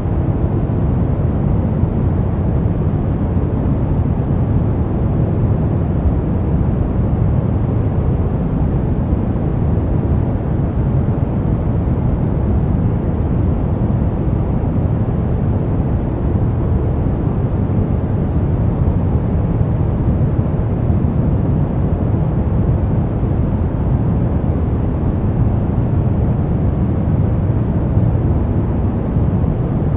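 Steady brown noise: a deep, even rumbling hiss with most of its weight in the low end and no changes or events.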